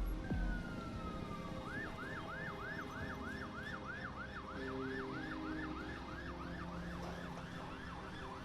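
Emergency vehicle siren, faint: a single falling tone, then about a second and a half in it switches to a fast yelp, rising and falling about three times a second.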